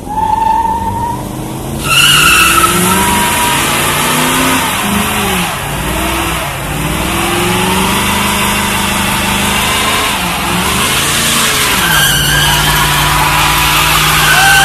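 Ford Mustang doing a burnout: the engine revs up and down several times while the rear tyres spin and squeal against the asphalt. The tyre noise comes in sharply about two seconds in and stays loud.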